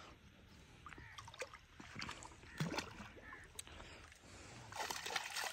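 Faint splashing and dripping of water at the edge of a river as a hooked fish is lifted out on a handline, with scattered small knocks and a slightly louder spell of splashing near the end.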